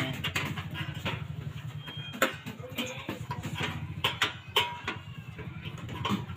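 Steel floor-deck installation work: irregular sharp knocks and metallic clanks at an uneven pace, over a steady low hum.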